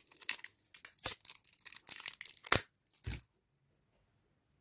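Clear adhesive tape being peeled off a cured epoxy-resin pendant in a metal frame: a string of short crackling, crinkling rips that stops after about three seconds.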